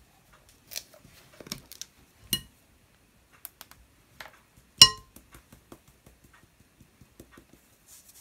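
Kitchen utensils clinking against a ceramic mixing bowl while dry ingredients are sifted: a few sharp clinks, the loudest and ringing about five seconds in, then light rapid tapping as a wire mesh sieve is shaken over the bowl to sift cream of tartar into the flour.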